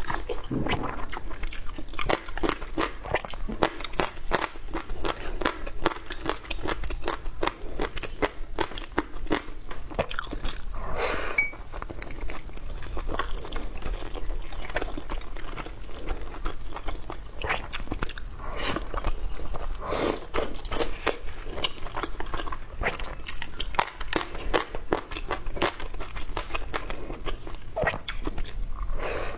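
A person chewing and biting food close to the microphone, with a continuous run of small, irregular wet mouth clicks and crunches. The food is steamed baozi buns.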